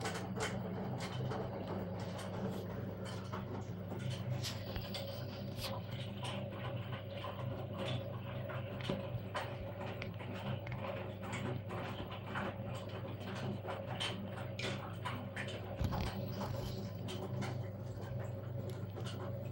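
LG 1409TDS6 direct-drive front-loading washing machine running a short cotton programme: a steady low hum with many irregular clicks and knocks throughout.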